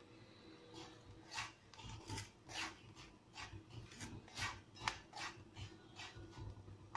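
Rasping scrapes of stirring through hot powdered salt in a heavy-bottomed kadai, about two strokes a second, while curry chickpeas dry-roast and pop in the salt.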